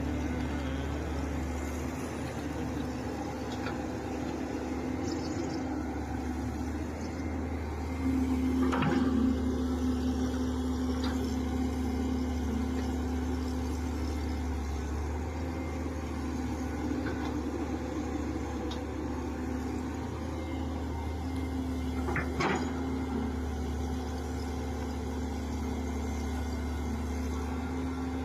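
Excavator's diesel engine running steadily, a little louder for a couple of seconds about eight seconds in, with two short knocks, one about nine seconds in and one near twenty-two seconds.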